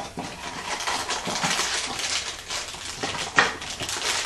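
Foil blind-bag wrapping of a Funko Mystery Mini crinkling and rustling as it is torn open and handled, with a louder sharp crackle a little over three seconds in.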